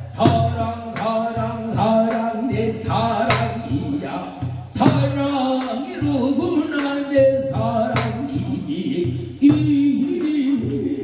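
A man singing a Korean traditional song in a sustained, bending vocal line through a microphone and PA speakers, accompanied by sharp strokes on a buk barrel drum.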